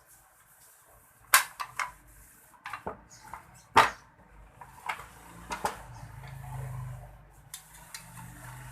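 Sharp clicks and knocks of a clothes iron's parts and tools being handled during repair, with two loud clacks about a second and a half and four seconds in. A faint low hum comes in during the second half.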